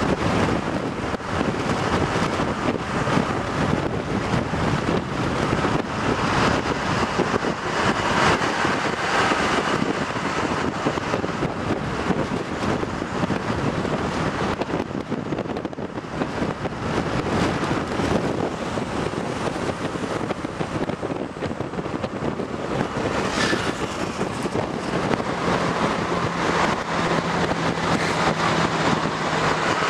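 Wind rushing over the microphone with steady road and engine noise from a moving car on the road. A steady engine hum joins in near the end.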